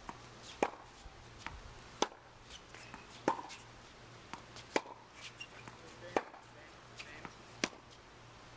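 Tennis rackets hitting a ball in a quick rally: six sharp pocks about a second and a half apart, with fainter knocks between them.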